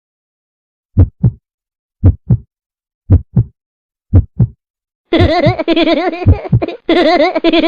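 Heartbeat sound effect: four double lub-dub beats, about one a second. About five seconds in, a loud, sustained, wavering choir- or voice-like sound effect cuts in.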